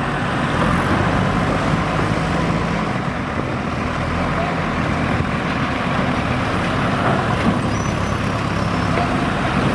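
Diesel engine of a JCB 3DX backhoe loader running steadily at working revs while it loads sand.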